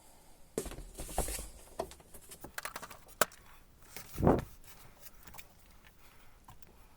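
Handling noises: a string of sharp clicks and short rustles, with one louder thump about four seconds in.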